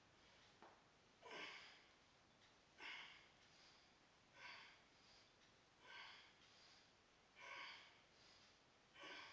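A man's faint, forceful breaths, six short ones about every second and a half. They are in rhythm with repetitions of band-resisted good mornings and are the breathing of exertion.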